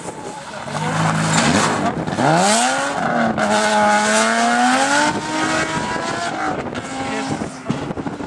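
BMW E28 5 Series rally car accelerating hard out of a corner, with tyre noise on gravel-strewn tarmac. The engine note dips, then climbs steeply about two seconds in, holds high, and fades as the car pulls away.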